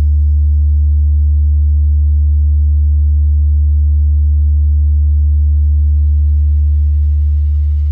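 A loud, steady deep bass sine tone, the sub-bass test tone of a DJ sound-check remix. A faint rising sweep creeps in near the end, building toward the drop.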